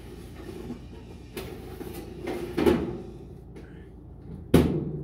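A metal baking tray being pulled out of a countertop electric oven, scraping along the oven rack about two seconds in. A single sharp clack near the end is the loudest sound.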